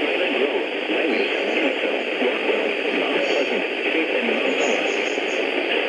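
Steady radio static hiss from a receiver, with no distinct voice or events in it.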